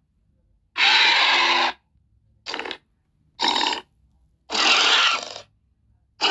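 Made-up Utahraptor dinosaur calls: four harsh, raspy vocalizations with silent gaps between them. Two last about a second and two are short.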